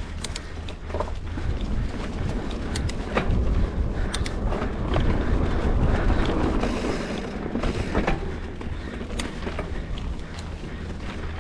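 Wind buffeting a bicycle-mounted action camera's microphone while riding, over a low road rumble, with scattered clicks and rattles. It grows louder in the middle, then eases off.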